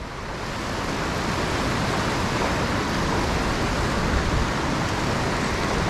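Ocean surf washing in over the shallows: a steady rush of breaking waves and foam.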